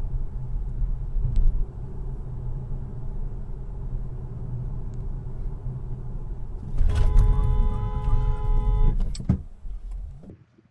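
Steady low road and engine rumble inside a car. About seven seconds in, a car horn blares for about two seconds with a sharp knock as it starts, and another knock comes just after it stops.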